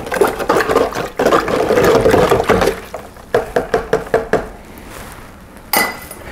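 A metal ladle stirring a muddy mix of soil and distilled water in a large plastic jug, with the liquid sloshing. About three seconds in comes a quick run of knocks, about five a second. This is the mixing of a soil sample, one cup of soil to five of water, in preparation for a soil test.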